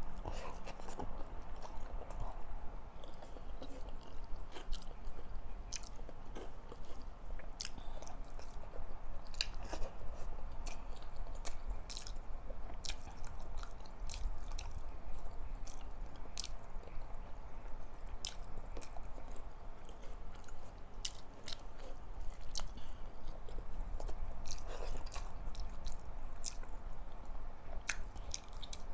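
Close-miked chewing and wet mouth sounds of someone eating rice with pork and vegetable pinakbet by hand, with many short smacks and clicks throughout, over a faint low hum.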